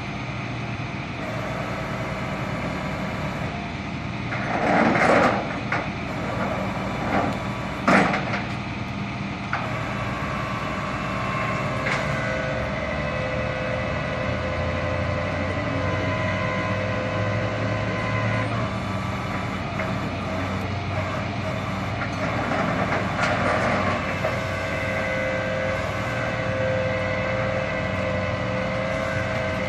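Flatbed tow truck running with its winch pulling the wrecked car up the tilted bed: a steady mechanical hum with several held tones. Two loud bursts of noise stand out about 5 and 8 seconds in.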